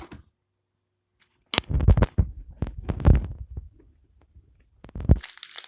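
Toy coin-operated vending machine's knob being twisted: a run of plastic clicks and knocks with low thumps starting about one and a half seconds in, then another pair of knocks near the end.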